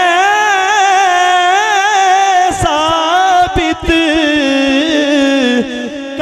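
A man singing a devotional Urdu naat into a microphone, drawing out long, wavering, ornamented notes between the words of the verse.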